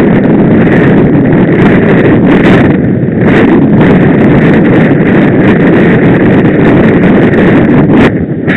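Loud, steady wind buffeting the microphone of a camera on a bicycle riding at speed.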